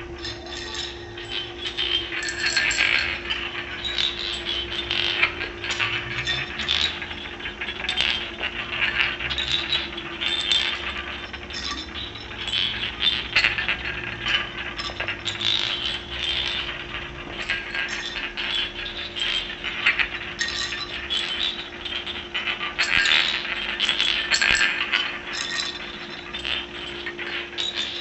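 Seashells on a tiled floor played as percussion, tapped by hand in a quick, irregular stream of bright clicks and clinks, with louder clusters now and then.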